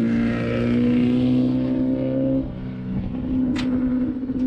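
Off-road race vehicle's engine running at a steady speed, easing off about two and a half seconds in. A single sharp click comes near the end.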